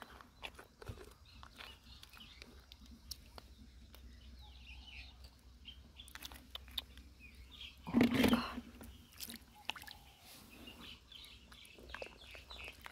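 Scattered small clicks and wet crunches of hands digging for clams and crabs, with faint bird chirps and one louder short burst about eight seconds in.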